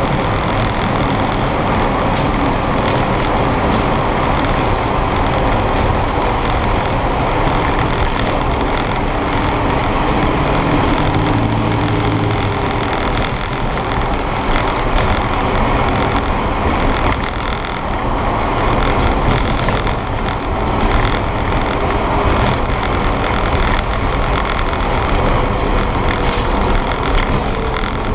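Engine of a stripped-out, roll-caged drag car running steadily, heard from inside the cabin along with road and wind noise.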